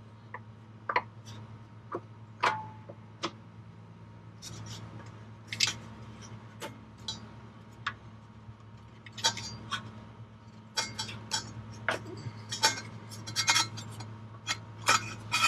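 Metal exhaust-bushing removal pliers clicking and clinking against the steel exhaust hanger as a rubber exhaust hanger bushing is worked off, in irregular sharp clicks that come more often in the second half, over a steady low hum.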